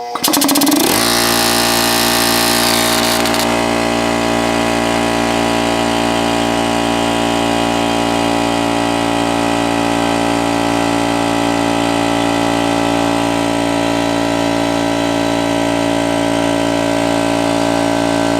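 Bostitch 6-gallon oil-free air compressor starting up and running steadily as it pumps air into its empty tank. The motor comes up to speed within the first second, with a hiss over the first few seconds.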